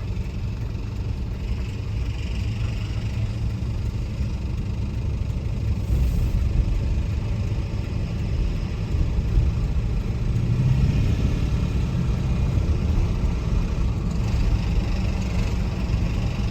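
A 2004 Ford F-150 driving, heard from inside the cab: a steady low rumble of its 5.4-litre three-valve V8 and road noise, getting a little louder about six seconds in and again about ten seconds in. The engine is worn out, short on power and prone to stalling when the truck stops.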